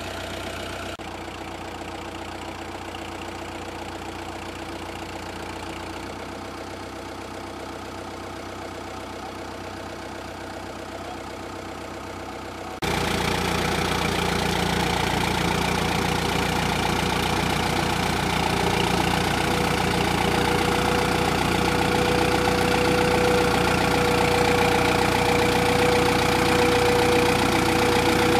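Tractor engine running steadily, with a sudden jump to a louder, closer sound about halfway through.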